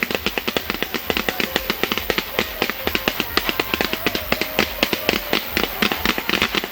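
Fireworks crackling: a dense, unbroken string of sharp pops, several a second.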